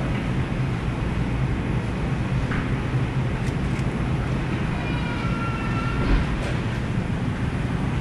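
Steady low rumble and hiss of supermarket background noise, with a faint brief tone about five seconds in.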